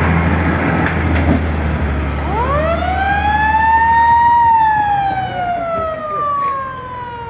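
Fire engine pulling away with its engine running, then its siren winds up about two seconds in, holds high, and slowly falls away: the truck is heading out on an emergency call.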